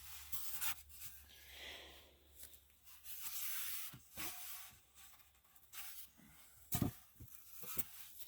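Foam insulation boards scraping and rubbing as they are handled and fitted against a wooden beehive, with a few light clicks and one sharper knock near the end.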